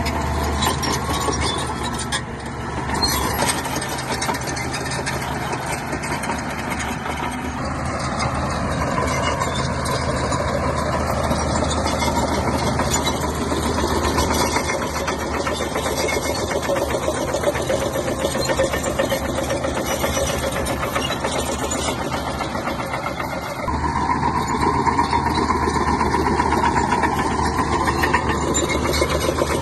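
Bulldozer's diesel engine running steadily, with a rapid even firing beat, growing louder about three quarters of the way through.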